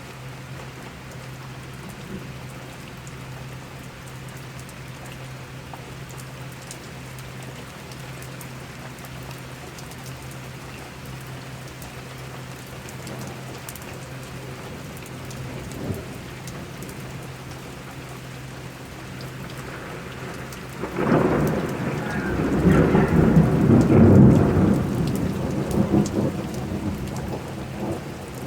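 Steady rain falling, then about two-thirds of the way through a loud roll of thunder breaks in. It rumbles for several seconds and slowly dies away.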